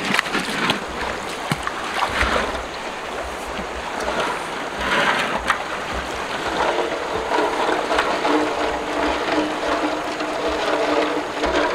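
River water rushing and splashing, with sharper splashes in the first half as a large metal basin is moved through the shallow current. A steady low hum joins about halfway through.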